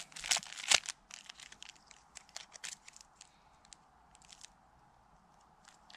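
Crinkling and rustling of plastic packaging being handled. The sharp crackles are thickest in the first second or so, then thin out to a few faint ticks.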